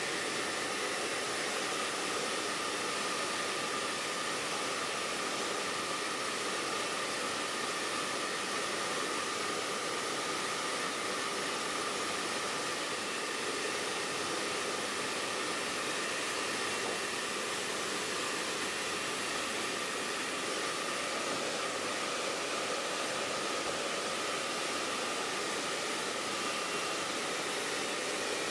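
Hand-held hair dryer running steadily, a constant rushing blow with a faint steady whine in it.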